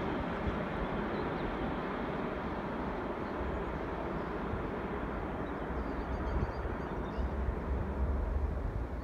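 Airbus A330-200 jet engines heard from a distance as the airliner lands and rolls out, a steady broad rumble. From about six seconds in, wind buffets the microphone in uneven gusts and a few faint bird chirps come through.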